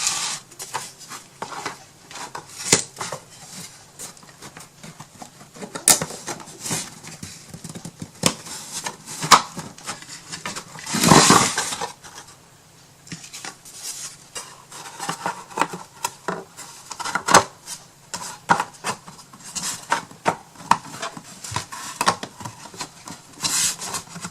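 Irregular clicks, taps and light clatter of wooden pieces of a small toolbox being handled and fitted together, with one louder, second-long scrape about eleven seconds in.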